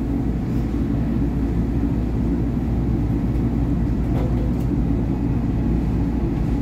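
SEPTA Market-Frankford Line subway-elevated train pulling out of a station: a steady low rumble of its motors and wheels on the rails.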